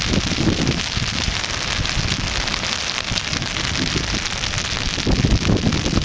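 Rain falling steadily on wet pavement, an even hiss, with low rumbles in the first half-second and again from about four and a half seconds in.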